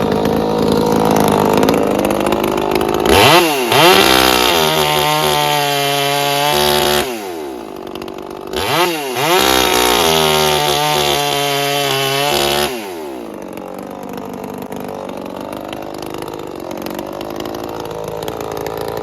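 Chainsaw engine idling, then revved up to high speed twice, about three seconds in and again about eight and a half seconds in, each held for about four seconds before dropping back to idle.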